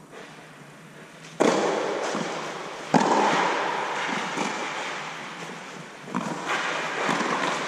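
Tennis ball struck by rackets and bouncing on a clay court in a rally: several sharp hits, each ringing on for a second or more in the echo of an inflated air dome. The two loudest come about a second and a half apart, early in the rally.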